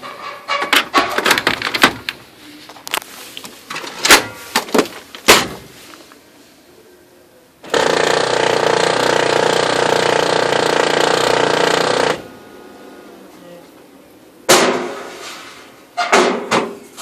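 Oki MB480 laser multifunction printer: clacks and knocks of its trays and covers being worked, then about four and a half seconds of loud, steady mechanical grinding from its drive that stops abruptly, followed by more clacks. The grinding is the fault of a new replacement unit that throws errors and jams.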